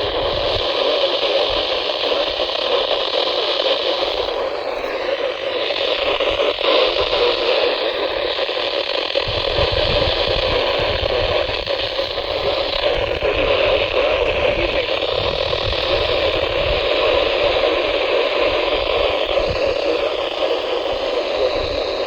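Steady static hiss from a weather radio receiver tuned to a weak, distant NOAA Weather Radio station, the broadcast voice lost in the noise as the signal fades.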